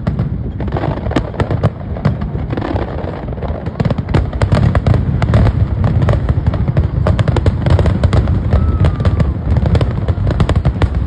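A dense barrage of fireworks: sharp bangs and crackles many times a second over a continuous low rumble, growing louder about four seconds in.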